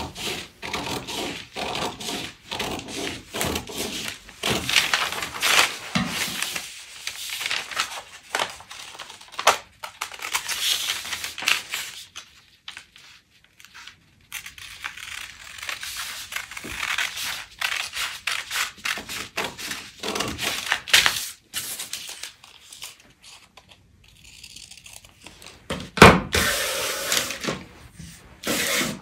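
Scissors snipping through stiff brown kraft pattern paper in a run of short cuts, with the paper rustling and crinkling as it is turned and held. A single louder noise comes near the end.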